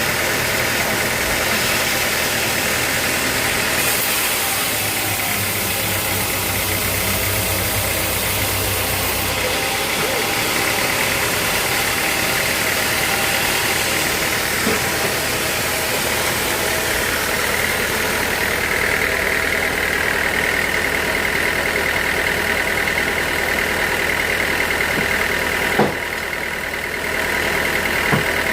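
Sawmill machinery running steadily with an engine-like drone, with a sharp click and a brief drop in level about 26 seconds in.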